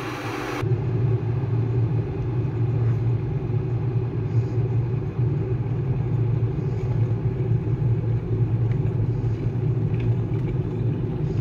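Electric kettle heating water near the boil, with a steady low rumble.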